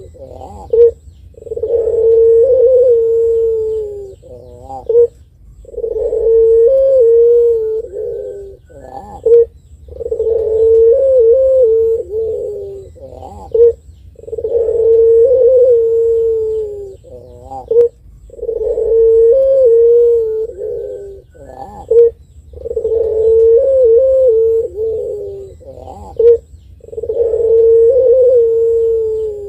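Caged puter pelung, a long-voiced strain of domestic Barbary (ringneck) dove, cooing over and over: a short sharp note and then a long drawn-out low coo that wavers a little and sinks at the end, seven times, about once every four seconds.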